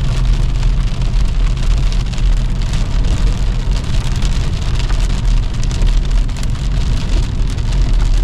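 Rain falling on a car as it drives, many fine drops ticking on the body over a steady engine and road rumble.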